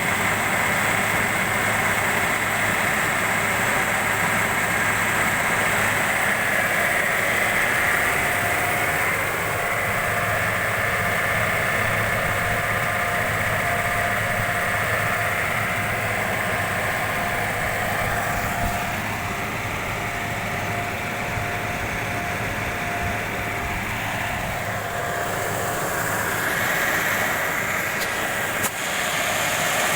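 Car engine idling steadily, a constant hum with a few fixed tones; a single sharp click near the end.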